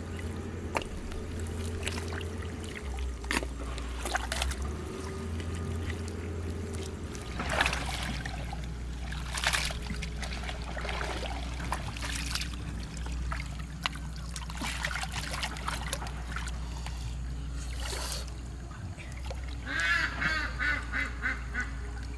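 Water splashing and trickling in irregular bursts over a steady low rumble, with a quick run of short calls about twenty seconds in.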